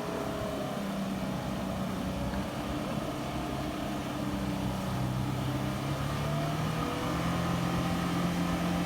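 Toyota Fortuner's 4-litre V6 engine running steadily while the SUV wades through deep water, its pitch drifting slightly up and down.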